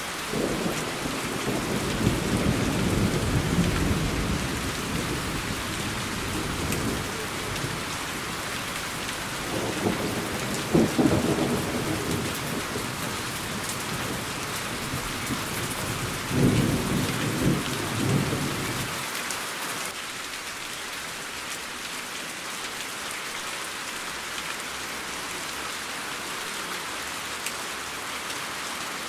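Steady rain hissing, with three rolls of thunder over it. The first rolls for several seconds from about half a second in, a second comes around ten seconds in with a sharper peak, and a third comes around sixteen seconds in. After about nineteen seconds only the rain remains.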